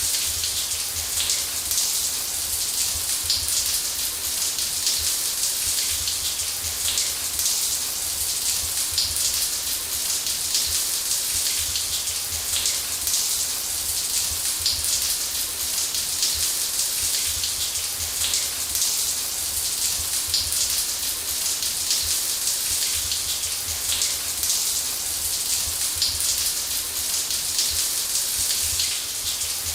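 Shower running steadily: a constant hiss of falling water spray, flecked with fine splashes of drops, over a low rumble.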